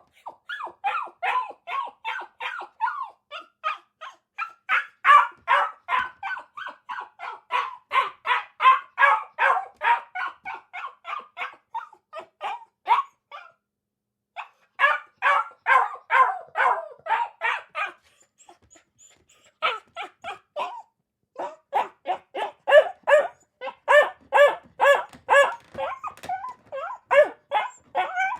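A dog barking in long rapid runs, about three to four barks a second, with two short pauses partway through.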